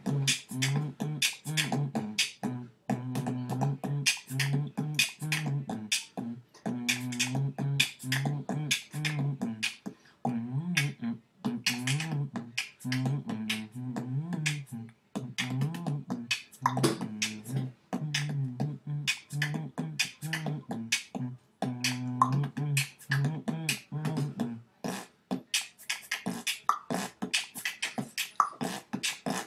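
Vocal beatboxing: rapid mouth-made drum sounds with a low hummed melody carried under them. About 25 seconds in, the humming stops and only the percussive sounds go on.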